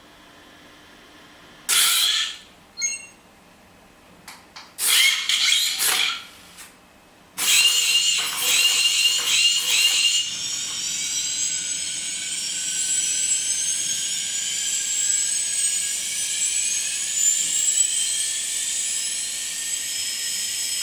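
Electronic sci-fi sound effects played by an Iron Man Mark 47 costume's chest sound module: several short high-pitched electronic bursts, then from about ten seconds in one long high whine that rises slowly in pitch.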